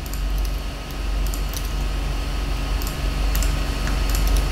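Typing on a computer keyboard: scattered, irregular key clicks as short entries are typed in, over a steady low hum.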